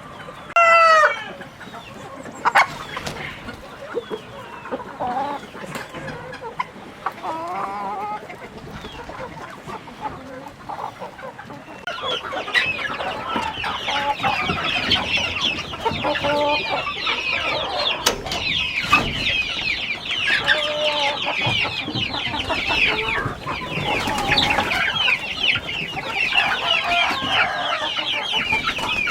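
A flock of chickens clucking and calling, with one loud call about a second in. From about twelve seconds in, a dense, louder chatter of high chirps from many birds joins the clucking.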